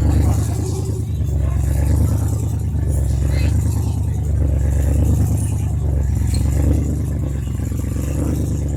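Rally Mitsubishi Pajero's engine running with a loud, deep rumble that swells and eases a few times.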